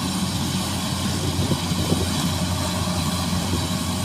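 Rice combine harvester engine running steadily, with a steady drone and a continuous rushing noise over it.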